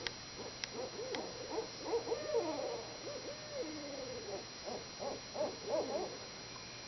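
Several owls calling back and forth over one another: loud, wavering hoots that rise and fall in pitch, starting about half a second in and stopping shortly before the end.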